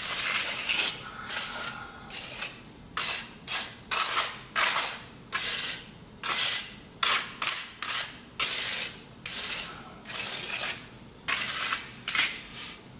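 Repeated short scraping strokes, about two a second, from a putty knife's blade pressing down and working wet concrete in a paver mold to push the air out.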